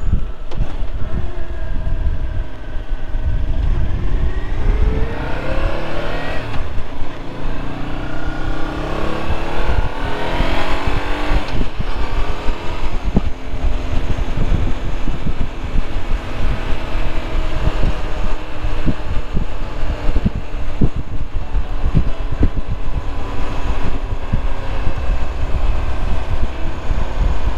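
Motorcycle engine on the move, rising in pitch twice in the first dozen seconds as it accelerates, then running at a steady speed, with a heavy wind rumble on the microphone.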